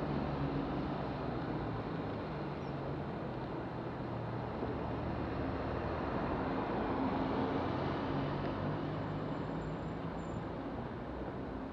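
Road traffic crossing a wet city junction: cars, a van and a lorry passing with a low engine hum over a steady wash of traffic noise.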